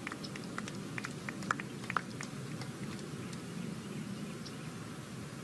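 Hushed outdoor ambience of a golf gallery waiting for a tee shot: a low steady murmur with scattered faint, short chirps and clicks.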